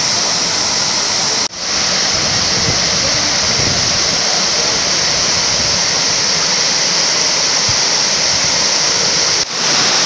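Waterfall cascading over rock ledges into a pool: a loud, steady rush of falling water. It drops out for an instant twice, about a second and a half in and just before the end.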